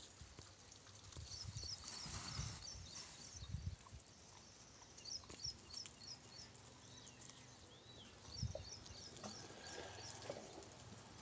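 Quiet outdoor ambience in which a small bird chirps in several quick runs of short high notes. A few soft low thumps come through, loudest about two and a half and eight and a half seconds in.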